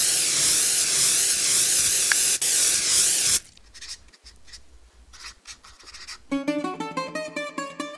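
Spray-paint can hissing loudly for about three and a half seconds, then a few short, fainter hisses. About six seconds in, plucked-string music in a Greek rebetiko style begins.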